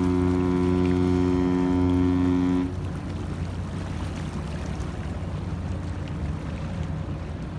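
Container ship's horn sounding one long, deep, steady note that cuts off about two and a half seconds in; a low steady rumble carries on after it. A prolonged blast like this is a ship's fog signal.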